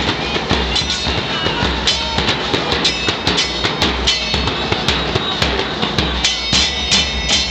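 Murga percussion: bass drums and cymbal crashes beating a steady, driving rhythm.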